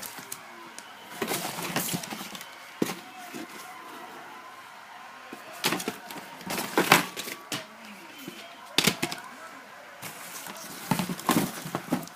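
Fireworks going off in several volleys of sharp bangs and crackles, with gaps of about a second or two between the bursts.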